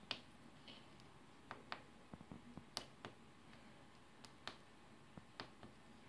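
Fingertip pressing keys on a 4x5 membrane keypad: a series of short, soft clicks at irregular intervals, several close together about two seconds in.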